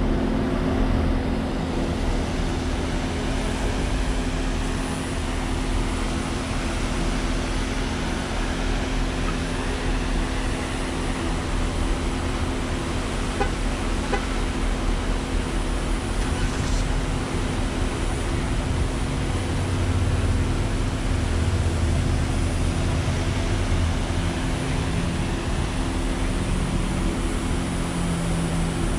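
Car engine idling as the car creeps forward at walking pace: a steady low hum with the even noise of surrounding traffic, the low rumble swelling briefly about two-thirds of the way through.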